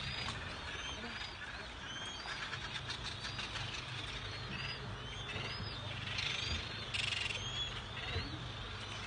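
A seabird colony calling, with many short rising-and-falling cries overlapping throughout. A boat engine runs low and steady underneath, and a short rush of noise comes about seven seconds in.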